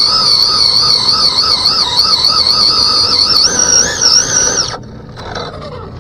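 Team Associated DR10 RC drag car held back by its rear end under throttle, its drivetrain and spinning wheels giving a loud, high whine that wavers up and down in pitch. The whine stops abruptly about five seconds in, followed by a brief falling tone.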